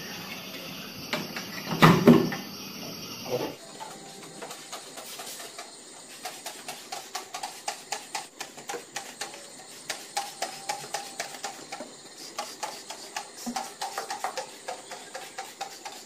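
A plastic fridge door bin clatters as it is lifted out, about two seconds in. Then a quiet background music track with a quick ticking percussion beat and a faint melody runs on.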